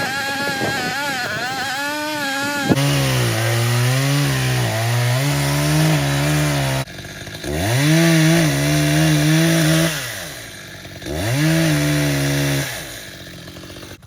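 Two-stroke chainsaw cutting wood, its engine pitch sagging and recovering under load. In the second half it is throttled up and held twice, dropping back between.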